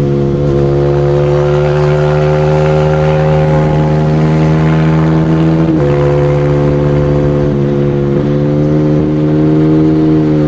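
Single-cylinder motorcycle engine held at high revs under load. About six seconds in, a gear change drops its pitch suddenly, and it holds steady again afterwards.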